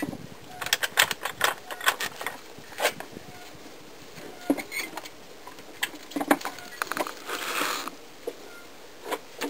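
Hand tools clinking and knocking on the lower strut-to-knuckle bolts of a Nissan Versa's front suspension: an irregular series of sharp metallic clicks, with a short rasping sound about three-quarters of the way through.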